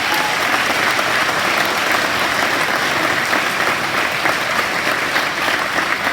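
An audience of children clapping together, a steady round of applause for award recipients.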